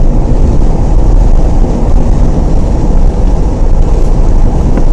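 Loud, steady low rumble of a car on the move: road and wind noise heard inside the vehicle.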